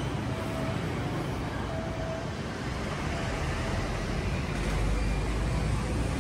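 Steady outdoor background rumble and hiss of the kind road traffic makes, with a few short faint tones mixed in.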